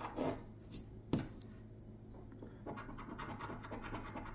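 A coin scratching the scratch-off coating from a lottery ticket in a run of short strokes, the sharpest about a second in.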